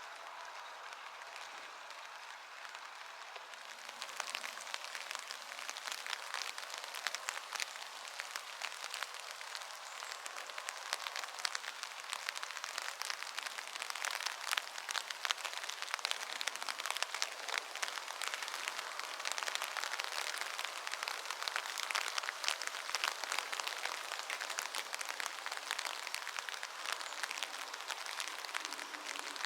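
Sunshower rain falling: a dense, steady patter of many drops that grows heavier about four seconds in.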